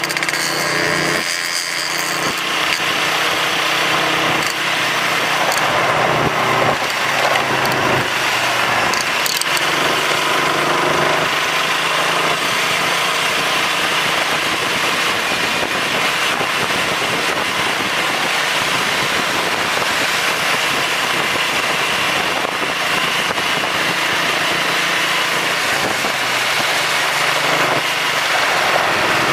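Motorcycle engine running at riding speed under a steady rush of wind and road noise on the microphone. The engine hum stands out more in the first ten seconds or so, then the wind rush covers most of it.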